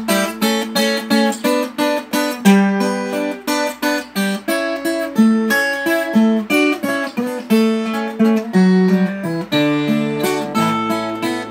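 Instrumental music: an acoustic guitar plucking and strumming a melody of quick, separate notes in a steady rhythm.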